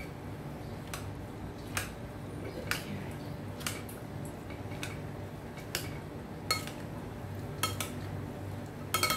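Two plastic serving spoons mixing a chickpea and potato chaat in a bowl: soft stirring with a sharp click of the spoons against the bowl about once a second, and a quick double click near the end.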